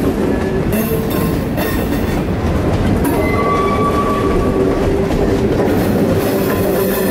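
Freight train of gondola cars rolling past close by: a steady rumble of steel wheels on rail, with clacks as wheels cross rail joints and a thin wheel squeal near the middle.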